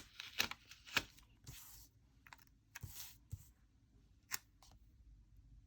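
Paper stickers and sheets being handled on a planner page: faint sharp taps and clicks, with a couple of short rustles as the paper is lifted and peeled.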